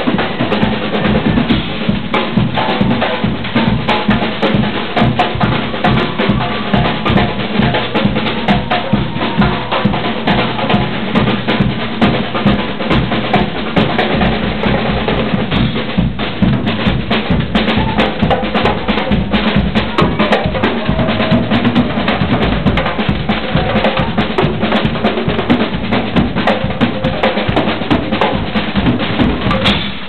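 Marching-band drum section playing live: bass drums and snare drums in a loud, fast, steady groove.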